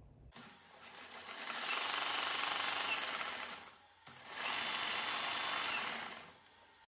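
EGO LB4800 leaf blower's brushless motor and fan driven from an RC car's speed controller and transmitter, run up twice: it winds up over about a second and a half, runs steadily with a rush of air and a whine, and winds down near the middle, then starts again, holds and winds down near the end. Spinning on the RC car's 8.4-volt battery, it runs only slowly, showing that the motor itself works.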